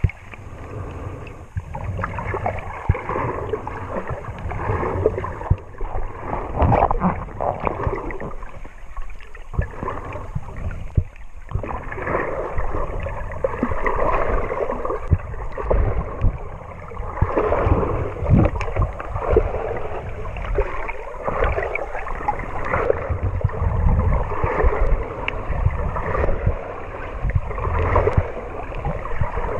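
Muffled sloshing and gurgling of seawater around a camera held just under the surface, coming in irregular surges.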